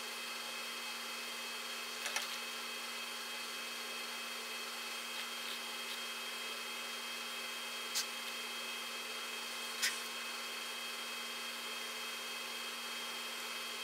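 Steady faint hiss with a constant hum, broken by faint light clicks about two, eight and ten seconds in, from soldering iron and capacitor leads being handled at a crossover's terminal strip.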